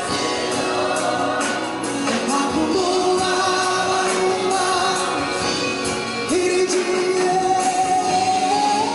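Live gospel music: a male lead singer holds long notes over a choir and instrumental backing, stepping up to a higher held note about six seconds in.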